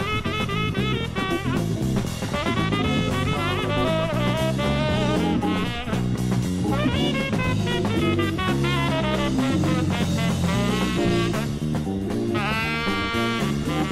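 Instrumental jazz-rock from a band recording: a busy melodic lead over a stepping bass line and drum kit, with a long note bending in pitch near the end.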